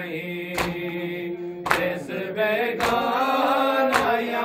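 Men's voices chanting an Urdu noha, a lament for Imam Husayn, in unison. Four sharp slaps of hands on chests (matam), about one a second, keep the beat.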